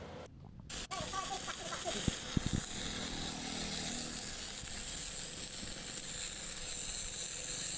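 Stick-welding arc, electrode rod burning on steel, giving a steady crackling hiss that starts about a second in. A few short low knocks come between two and three seconds in.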